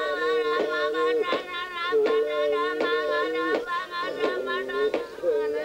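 Group of Tiwi women singing in long held, wavering notes, more than one voice together, with a sharp percussive strike keeping a beat about every three quarters of a second.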